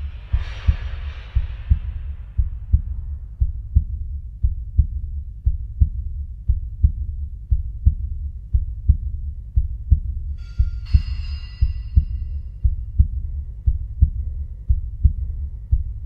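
Heartbeat sound effect: steady low double thumps, about one beat a second. It opens with a hissing swell that fades over a couple of seconds, and a short burst with ringing tones cuts in about ten and a half seconds in.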